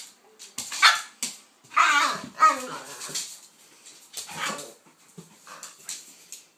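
Dogs barking and yipping during rough play, in a string of irregular short bursts, loudest about two seconds in.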